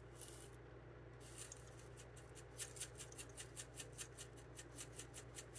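Red pepper flakes being shaken out of a spice shaker: quick, even shakes of about five a second, starting faintly a second or so in and settling into a steady rhythm.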